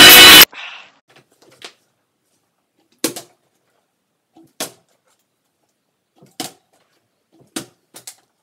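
Background music cuts off about half a second in. After that, a plastic water bottle being flipped lands on a wooden parquet floor with a short knock several times, a second or so apart.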